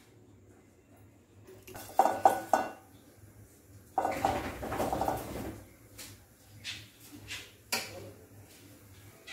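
Metal spoon and steel cookware clinking and scraping: three quick ringing knocks about two seconds in, a second and a half of scraping from about four seconds, then a few single knocks.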